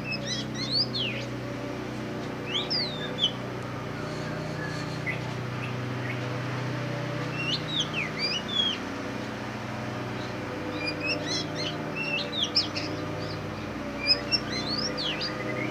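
Caged black Oriental magpie-robin (kacer hitam) singing: short phrases of whistled notes that sweep quickly up and down, coming every few seconds over a steady low hum.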